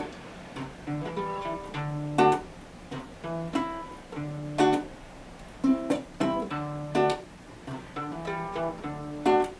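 Guitar played solo with no voice: a loud strum roughly every two seconds, with lighter picked notes and bass notes in between.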